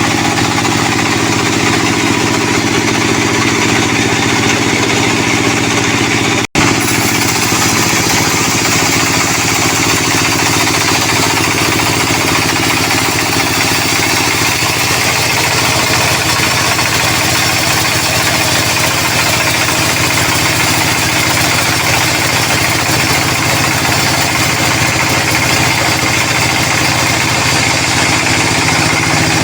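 Sawmill machinery running steadily while sawing a sonokeling (Indian rosewood) log: a constant mechanical drone with one momentary break a few seconds in.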